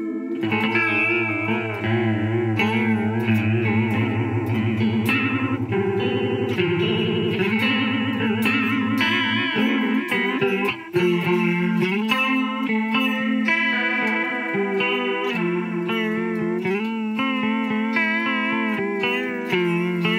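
Electric guitar played through an Old Blood Noise Endeavors Reflector pedal on its Mirror setting, a fast, deep pitch vibrato that makes every note waver up and down in pitch. A held low note sounds under the wavering notes for about the first half, then changing chords follow.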